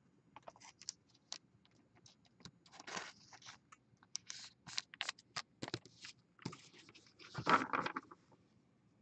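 Faint handling of trading cards: scattered light clicks, taps and scrapes of card stock against card and fingers, with a longer, louder scrape about seven and a half seconds in.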